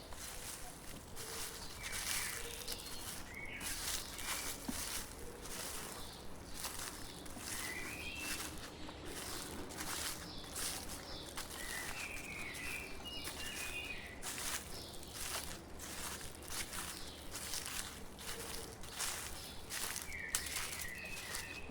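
Footsteps crunching through dry fallen leaves on a forest path at a steady walking pace. Small birds chirp short phrases several times in the background.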